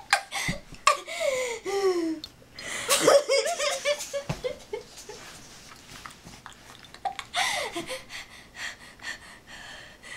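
A girl laughing in fits. High, squealing laughs fall in pitch about a second in, a quick run of short laughs comes about three seconds in, and another falling laugh comes near the end.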